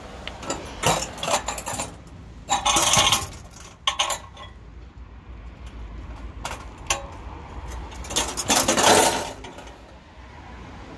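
Metal light-fitting frame being handled: its steel disc, wire arms and metal cylinders clinking and rattling against each other in several spells. The loudest spells come about three seconds in and again near nine seconds.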